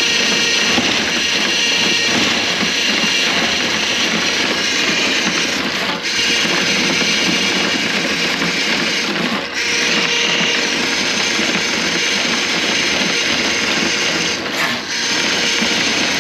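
Electric drain-cleaning machine running steadily, its motor and spinning cable working through a grease-clogged drain line, with the sound briefly dipping three times.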